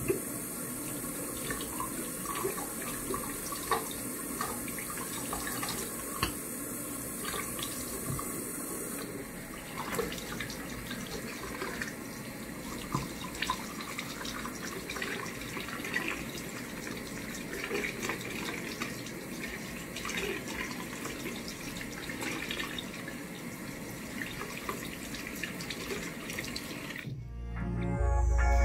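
Bathroom sink faucet running, its stream splashing over hands and a small wet puppy held under it into the basin. Music comes in near the end.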